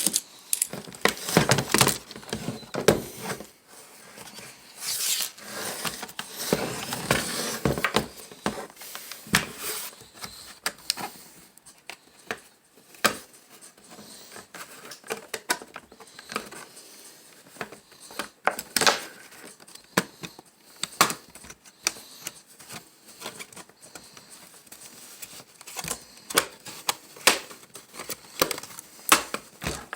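Irregular clicks, taps and rattles of small hard laptop parts being handled, with some rustling in between; the clicks come in quick clusters with short lulls.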